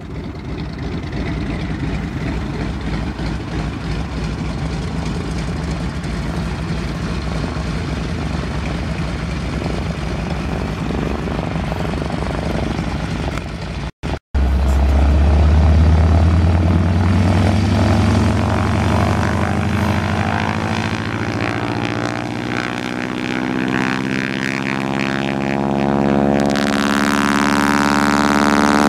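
De Havilland DHC-2 Beaver floatplane's nine-cylinder Pratt & Whitney R-985 radial engine and propeller, running steadily out on the lake. After a cut about 14 seconds in, it is louder at takeoff power, its pitch slowly rising as the plane speeds up on the water, with a hiss joining near the end.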